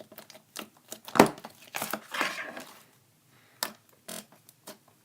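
Slime being squeezed and pulled apart by hand: irregular sticky clicks and squelches, the loudest about a second in.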